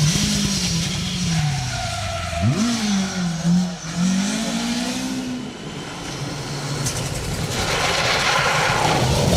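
Rally car engine working hard on a stage, its pitch rising and falling with throttle and gear changes, with one sharp rev flare about two and a half seconds in. Near the end the engine note climbs again under a loud rushing noise.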